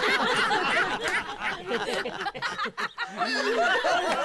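Live audience laughing and chuckling after a punchline, many voices overlapping.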